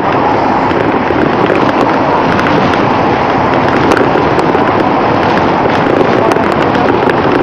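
Wind and road noise on a bicycle-mounted camera's microphone while riding. It is a loud, steady rush with constant small crackles.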